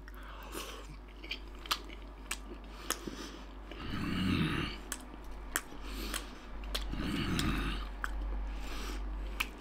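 A toothless man chewing a tough slice of grilled pork belly with his gums: wet smacking with sharp clicks every half second or so, and two longer, lower mouth sounds near the middle and toward the end.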